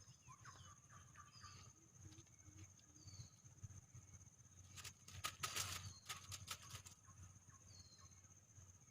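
Faint outdoor ambience: a steady high insect drone with short falling bird chirps every second or two. A brief burst of rustling and clicking comes about five seconds in.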